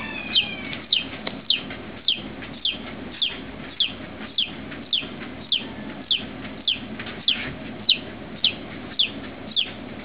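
Newly hatched chicken chick peeping: short, high, falling peeps repeated at a steady pace, a little under two a second.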